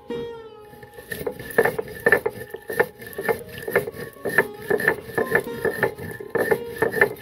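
Stone roller rocked and rubbed over a flat stone grinding slab (sil-nora), crushing whole panch phoron spices in short gritty strokes about two a second. This is a coarse, light crush, not a fine grind.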